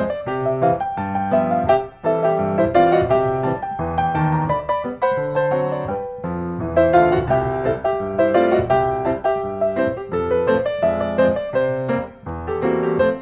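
Background instrumental music: a steady run of piano notes.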